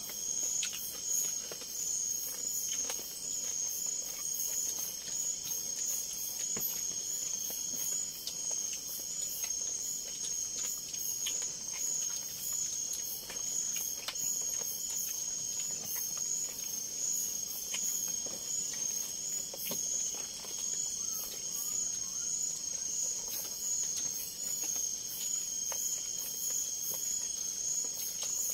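A chorus of insects in the forest at night: a steady, high, fast-pulsing trill, with a few faint clicks scattered through it.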